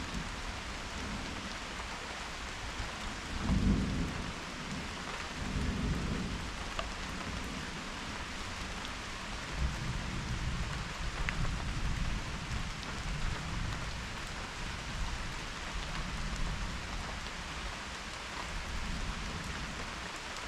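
Steady rain falling, with low rolling rumbles of thunder coming and going, the loudest about four seconds in and another long roll from about ten seconds.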